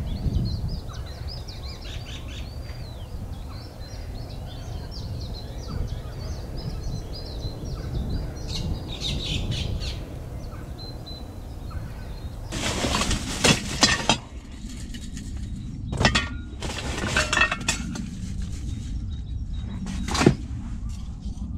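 Small birds chirping over a low rumble of wind on the microphone. In the second half come bursts of clatter and a few sharp clicks from camping gear being handled, a gas canister among it.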